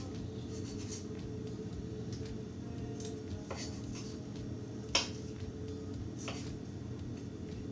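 Kitchen knife clicking and tapping against a wooden cutting board a few times as nectarine flesh is cut away from the pit. The sharpest tap comes about five seconds in, and a steady low hum runs underneath.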